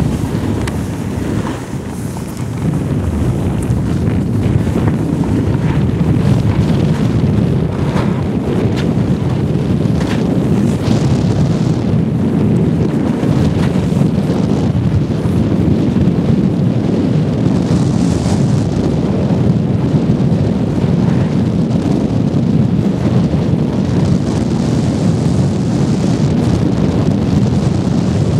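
Steady wind rumble on the microphone of a camera carried down a ski slope, mixed with the hiss of sliding over packed snow. It grows louder about two and a half seconds in as the rider picks up speed.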